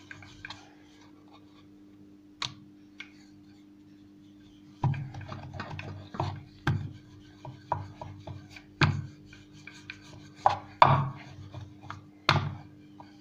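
Wooden rolling pin rolling out a thin dough wrapper on a rolling board: irregular knocks and rubbing as the pin rolls and meets the board, starting about five seconds in after a near-quiet stretch with one click. A faint steady hum runs underneath.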